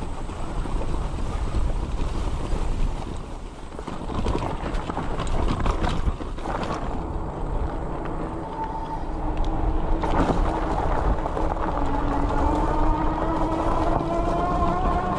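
Wind buffeting the microphone and fat tires rolling over grass, then a farm lane, on a moving 52-volt 750 W fat-tire e-bike. In the second half the rear hub motor's whine comes through, rising slowly in pitch.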